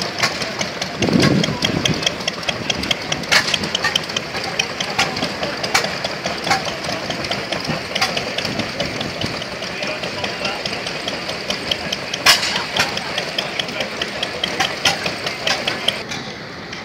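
Vintage stationary engines running at a show, a steady rapid clatter of exhaust beats and valve ticks, with one louder crack about twelve seconds in.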